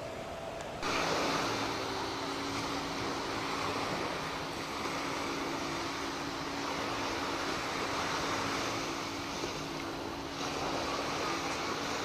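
Wind on the microphone and sea surf, a steady rushing noise that jumps louder about a second in. A faint steady hum runs under it until near the end.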